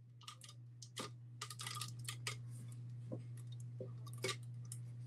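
Tape being pulled and pressed down around the edges of the sublimation paper on a tumbler: faint, irregular crackling and small clicks of tape and paper being handled.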